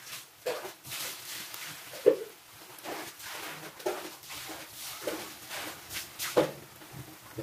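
Corn fritter batter deep-frying in hot oil in a wok: a steady sizzle broken by half a dozen sharp sputtering pops, the loudest about two seconds in, as fresh spoonfuls of batter hit the oil.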